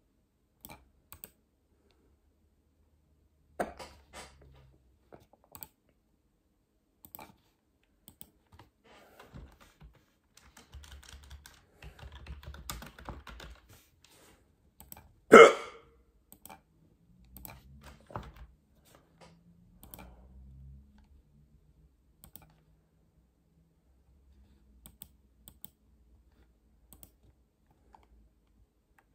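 A person hiccuping: one sharp hiccup a few seconds in and a much louder one about halfway through, with faint scattered clicks and taps in between.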